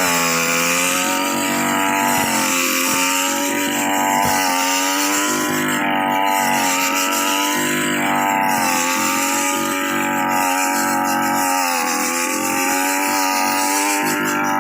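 Small two-stroke engine of a brush cutter converted to cut rice, running at high revs. Its pitch sags and recovers about every two seconds as the cutter takes a load.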